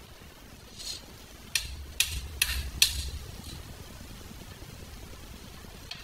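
A few sharp metal clicks, four of them close together about a second and a half in, with a low rumble beneath: hands working the Honda CRF110's rear brake rod at the drum brake arm.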